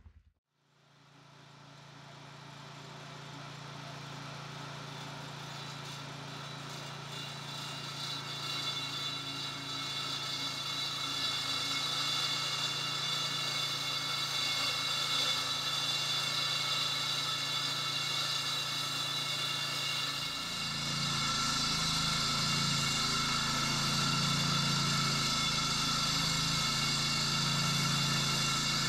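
Bartell walk-behind concrete saw with a Kohler Command PRO petrol engine running steadily while its blade cuts a joint in the new concrete floor: an engine hum under a steady high-pitched blade whine. The sound fades in over the first few seconds, and about twenty seconds in the engine hum becomes louder and rougher.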